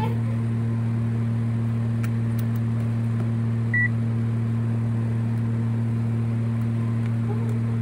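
Steady low electrical hum from the powered-up bench equipment, with one short high beep a little under four seconds in.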